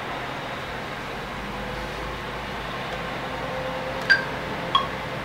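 Steady hiss of room noise with a faint hum; about four seconds in, two short, clear synth notes at different pitches sound, the first notes of an electronic hip hop beat.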